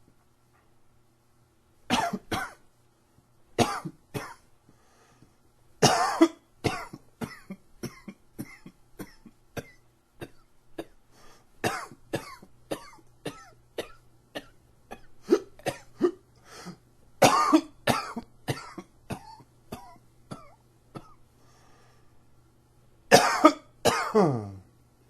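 A man coughing in repeated fits set off by an allergy tickle in the throat: loud coughs in pairs and clusters, with a run of short, smaller coughs between them. Near the end a last hard double cough trails off in a falling, throaty sound.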